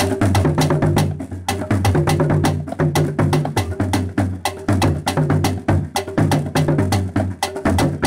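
West African percussion ensemble playing a steady, fast rhythm: stick-struck drums give repeating low strokes under a dense run of sharp clicks from a hand-held metal percussion instrument.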